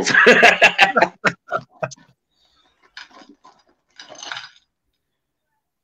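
Scattered clicks and short crackly rustles of a snack bag and red candy-coated popcorn pieces being tipped out onto a china plate, with a half-second rustle of pouring about four seconds in.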